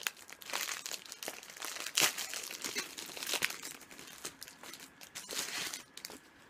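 A food wrapper crinkling and tearing as it is opened by hand: irregular crackles with a few sharper rips, dying away near the end.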